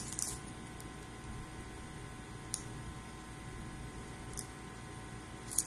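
Hands rummaging in a cardboard box of trading cards: a few faint, scattered clicks and rustles over a steady low room hum.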